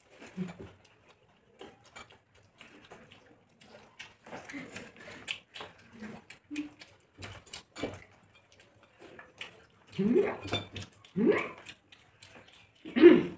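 People eating rice and curry with their hands: wet chewing and lip-smacking mouth noises with scattered light clicks of fingers and food on plates, and a few louder mouth noises near the end.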